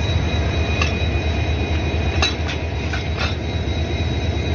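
Diesel locomotive idling with a steady low rumble and a faint high whine, while a few sharp metallic clinks sound in the middle as the coupler and brake-hose gear at its end are handled during the engine change.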